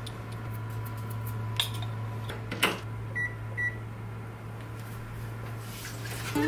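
The metal grill drawer of a Rinnai gas range pushed shut with a clack, then two short high beeps from the range as its fish grill is switched on, over a steady low hum.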